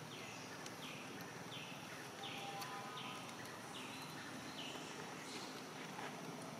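An animal giving a series of about eight short, high-pitched calls, each falling in pitch, repeated evenly about every two-thirds of a second and stopping about two-thirds of the way through.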